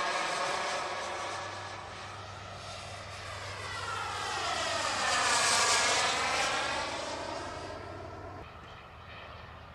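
Turbine whine of a JetCat P160SX model jet engine in a radio-controlled Eurofighter EF-2000 flying past. It grows to its loudest a little past halfway, with a swooshing sweep in tone as it goes by, then fades away.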